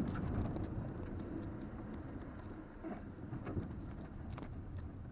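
Low in-cabin rumble of a 2020 Toyota RAV4 driving over a sandy dirt track, with scattered small ticks and knocks from the tyres and body. It grows steadily quieter toward the end.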